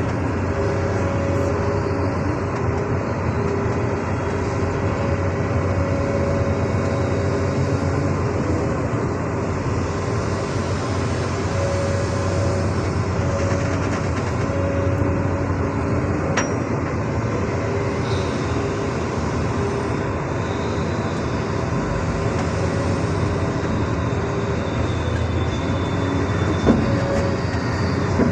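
Heavy-equipment diesel engine running steadily, with pitched whines that come and go over it, and a single short knock near the end.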